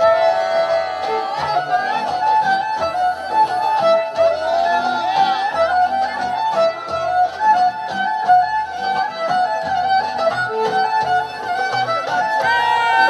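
Violin playing a traditional Ikarian dance tune, with a steady low beat underneath.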